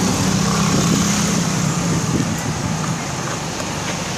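Motorcycle engine running steadily under way, with wind and road noise; the engine note is strongest for the first two seconds and then eases slightly.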